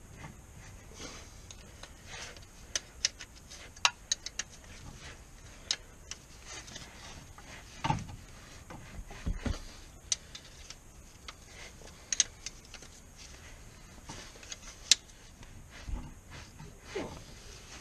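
A spanner clinking and clicking against the gearbox bolts of a Land Rover Freelander TD4 during clutch work: scattered sharp metallic taps, with a couple of duller knocks about eight and nine seconds in.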